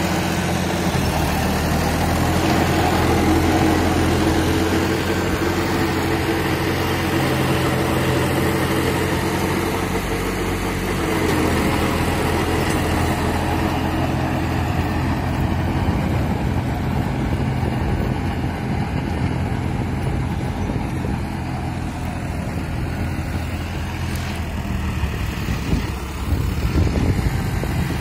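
John Deere 5050D tractor's three-cylinder diesel engine running steadily under load while driving a rotavator through dry soil. The engine note shifts about ten seconds in, and near the end it dips briefly and then comes back louder.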